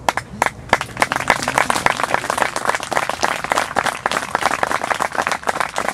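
A small audience clapping: a few single claps at first, then quickly filling into steady applause.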